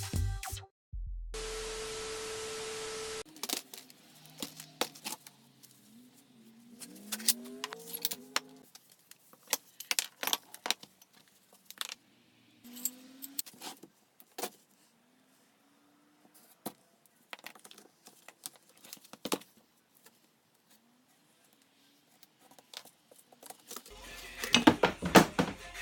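Scattered metal clinks and knocks of scrap pieces being handled, after a short steady hiss with a held tone about a second in; music comes back near the end.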